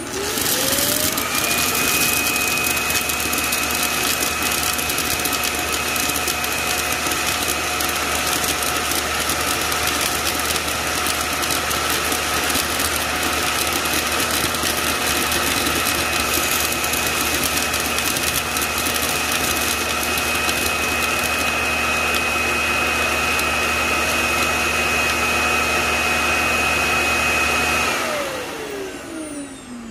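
Roborock S7 auto-empty dock's suction motor spinning up with a rising whine, running loud and steady for about 26 seconds while it sucks the debris out of the robot vacuum's dustbin, then winding down with a falling whine near the end.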